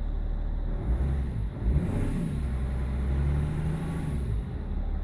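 BMW E46 330d's M57 straight-six diesel running; about a second in its speed rises unevenly, holds higher, then drops back near the end. The judder at around 1500 rpm is the rough running the owner puts down to failing injectors, injector 6 worst.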